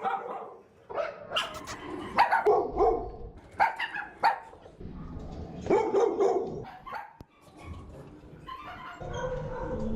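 Shelter dogs barking in repeated short bursts with brief pauses between them. A steady drawn-out tone starts near the end.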